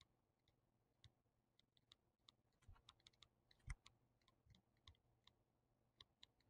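Near silence with faint, irregular clicks and taps from a stylus on a tablet as words are handwritten, one tap a little louder about halfway through.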